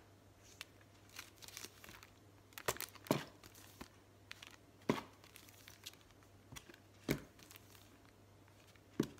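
Plastic-packaged stencils being flipped through one after another: short crinkling slaps of plastic packaging every second or two, some louder than others.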